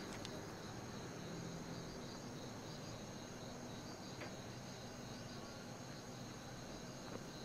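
Faint, steady high-pitched chirring of insects in outdoor ambience.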